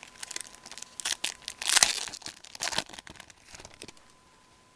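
Foil wrapper of a Fleer hockey card pack being torn open and crinkled as the cards are pulled out: a run of crackling rustles, loudest about two seconds in, dying away near the end.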